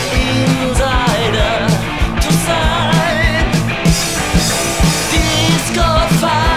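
A 1980s rock band recording: electric guitars, bass and drums playing at full tilt with a steady drum beat.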